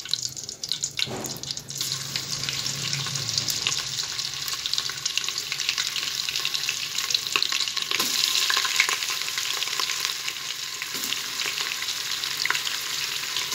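Pieces of goat meat frying in hot oil in an aluminium pressure cooker, a continuous sizzle and crackle. It gets louder about two seconds in and again near eight seconds as more meat goes into the oil.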